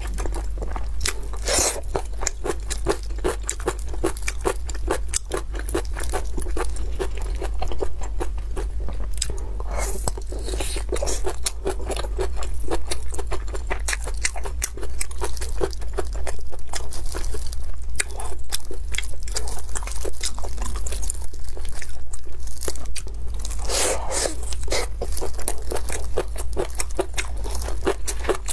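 Close-miked chewing of blood sausage and kimchi: a dense run of small wet mouth clicks with several louder crunchy bites, over a steady low hum.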